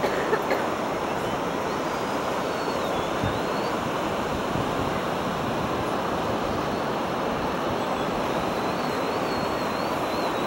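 Steady surf and wind noise, with the faint, distant high whine of a model aerobatic airplane's motor wavering up and down in pitch as it manoeuvres, heard twice.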